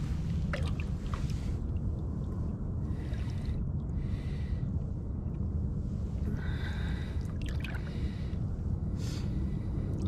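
Water splashing and sloshing in short bursts as a sturgeon is held by hand at the surface for release, over a steady low rumble.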